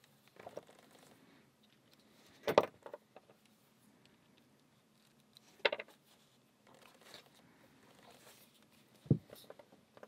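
Small metal clicks from a lock cylinder and its inserted key being worked in the hand. Three sharp clicks come a few seconds apart, with faint handling rustle between them.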